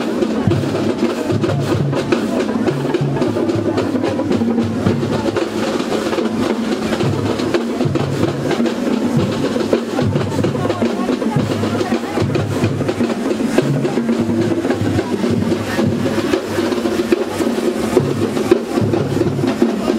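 Loud dance music with heavy drums and a steady beat.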